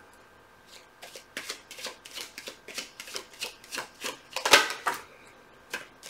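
A tarot deck being shuffled by hand: a run of short papery card clicks, about three a second, starting about a second in and stopping about five seconds in.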